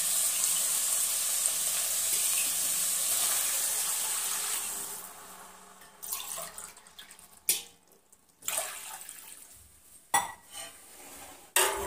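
Water poured from a steel tumbler into a hot aluminium pan of fried onions, peas and tomatoes, hissing loudly as it hits the hot oil. The hiss dies away about five seconds in, and a few sharp metal clinks follow in the second half.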